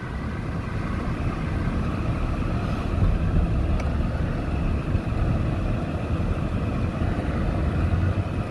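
Steady road and engine noise heard from inside a moving car's cabin: an even, low rumble with no breaks.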